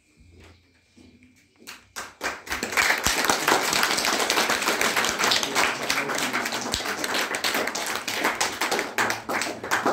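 Audience clapping: a few single claps about two seconds in build quickly into steady applause from a small crowd, thinning to scattered separate claps near the end.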